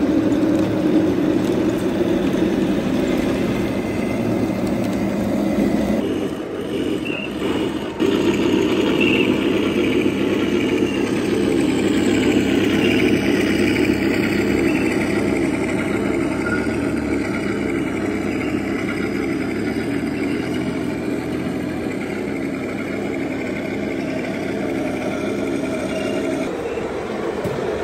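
Radio-controlled model tanks running, a steady engine rumble as from their sound units, with a brief break and a couple of clicks between about six and eight seconds in.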